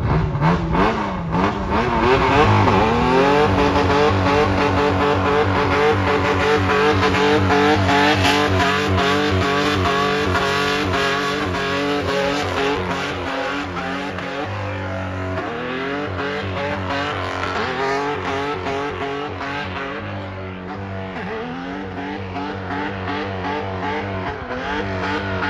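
Nissan 4x4's engine held at high revs while drifting, the revs wavering rapidly, over the screech of spinning tyres. The revs climb in the first couple of seconds and dip briefly a few times in the second half.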